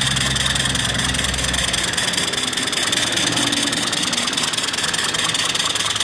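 Small vertical steam engine (1.5-inch bore, 2-inch stroke) running on steam from its fire-tube boiler: a fast, even chuffing of exhaust beats over a steady hiss of steam. A low hum fades out about two seconds in.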